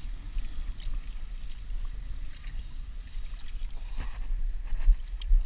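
Low rumble of wind buffeting the microphone, with a few faint light clicks.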